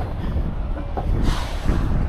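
Uneven low rumble of wind buffeting the microphone, with a brief rushing hiss about a second and a half in.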